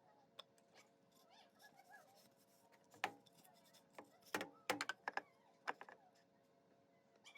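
A cat meowing faintly a few times, then a run of sharp knocks and clicks about halfway through, over a faint steady hum.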